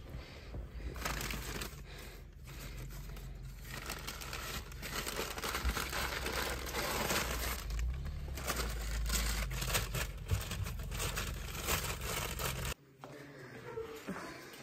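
Brown paper food bag crinkling and rustling as it is handled, over a steady low rumble. The sound cuts off abruptly near the end.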